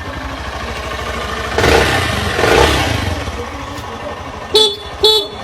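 A small engine running with a steady pulsing rumble, revved up for about a second and a half a little over a second in, then settling back. Two short pitched tones sound near the end.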